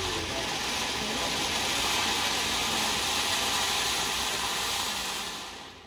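Steady hiss of a burning firework, fading out near the end.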